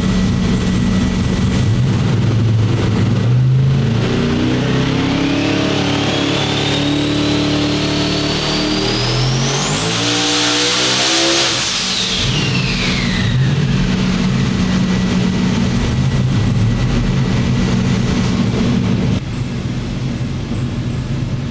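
Turbocharged Steve Morris SML V8 on an engine dyno, running steadily and then pulled up through the revs with a rising turbo whistle. Near the middle it drops back to a steady idle, and it turns a little quieter near the end. It is a dyno pull at about 32 pounds of boost.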